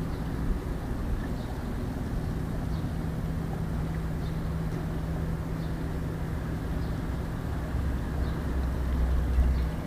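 Steady low drone of a running vehicle with a constant hum, the low rumble growing louder about eight seconds in.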